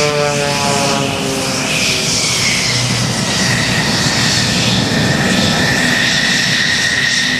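Piston engines and propellers of two aerobatic monoplanes, an Extra 300S and an MX-2, flying by in close formation. The engine note drops in pitch in the first second as they pass, then settles into a steady, loud rushing drone as they pull up into a climb.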